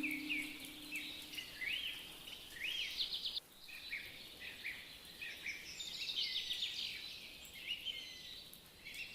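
Several small birds chirping and calling over each other, a busy run of short, quick rising and falling notes.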